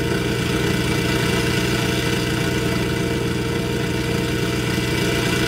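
Synthesized GMC straight-six engine from a Phase Plant preset, running steadily at constant revs.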